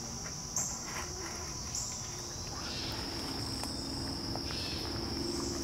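Steady high-pitched insect chorus of crickets or katydids, with a second, higher insect call coming in short bursts about once a second in the first couple of seconds.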